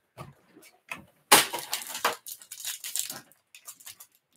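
Plastic wrapper of a trading card pack crinkling and crackling as it is handled and torn open by hand, with a louder stretch of crackling about a second and a half in.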